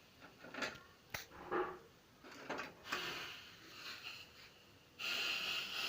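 Kitchen handling sounds: a few light knocks and short scrapes of utensils, then a steady hiss starts abruptly about five seconds in.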